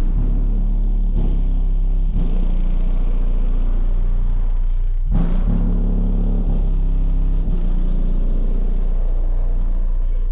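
Eight Skar DDX subwoofers wired at half an ohm playing loud, sustained deep bass notes. The notes change abruptly about a second in, again about two seconds in, and again about five seconds in.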